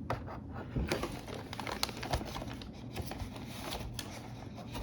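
Scattered light clicks and soft rustling of plastic model-kit parts and paper being handled.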